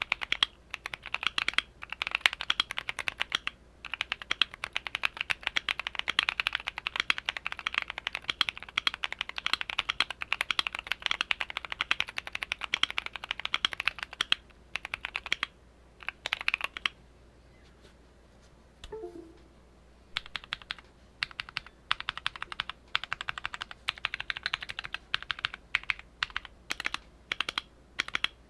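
Fast, continuous typing on a modded Keychron Q1 mechanical keyboard fitted with Durock T1 POM Sunflower tactile switches. The keystrokes stop for about three seconds past the middle, then the typing picks up again.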